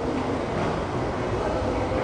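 Passenger coaches of a locomotive-hauled intercity through train rolling past, a steady noise of wheels on the rails as the last coach goes by.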